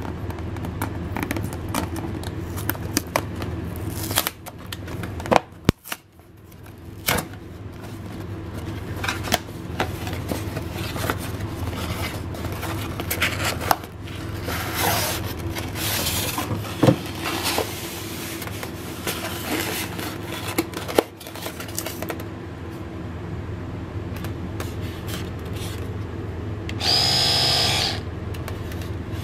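Cardboard packaging being handled and opened: rustling, tapping and scraping of the box and its flaps, with a few sharper knocks. About 27 seconds in, the Oral-B Pro 500 electric toothbrush is switched on and its motor buzzes for about a second and a half.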